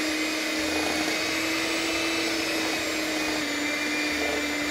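Electric hand mixer running steadily on high, its beaters creaming softened butter and sugar: an even motor whine.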